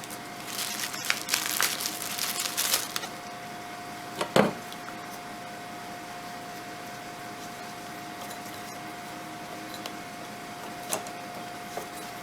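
Hands working a new O-ring onto the oil filter cap: rustling and small clicks for about three seconds, a single knock a little past four seconds, then a steady faint hum with one more click near the end.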